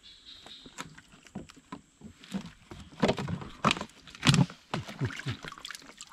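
Water splashing and a run of small knocks and clicks as a bubu fish trap is handled in the swamp, with heavier splashing thumps about three and four seconds in.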